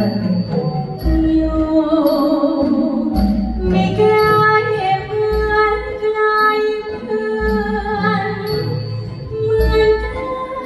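A Thai song sung with live orchestral accompaniment, a woman's voice carrying a wavering melody. A low drum beat falls about every two seconds, with light high cymbal ticks.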